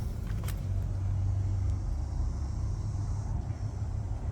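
Steady low rumble of the El Camino's 383 stroker V8 idling, heard from inside the cab.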